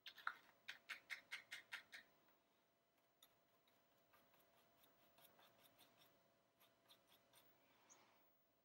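A quick run of faint, sharp clicks, about six a second, over the first two seconds, then near silence with only a faint steady hum and a few scattered ticks.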